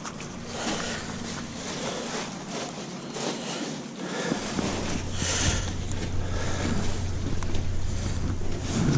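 Wind buffeting the microphone, with brief rustling handling sounds as the purchases are bagged. A steady low hum comes in about four seconds in.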